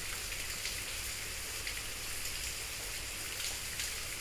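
Steady background hiss with faint crackling and a low hum underneath, unchanging throughout.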